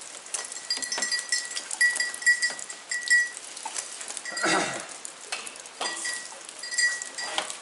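Rain pattering and dripping, with many scattered small ticks of drops. A brief louder sound comes about four and a half seconds in and another near the end.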